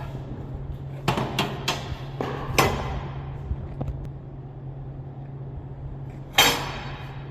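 Steel pickets clanking against a metal welding jig as they are set in place: three quick knocks about a second in, another shortly after, and a louder one near the end, over a steady low hum.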